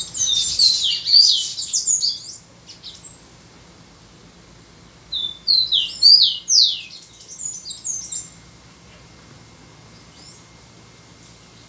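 Caged songbird singing two phrases of quick, mostly falling whistled notes. The first phrase fills the first couple of seconds, and the second comes about three seconds later.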